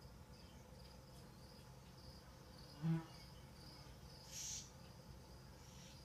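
Crickets chirping steadily and faintly in the nature-documentary soundtrack, with a short low call about three seconds in and a brief high hiss about a second and a half later.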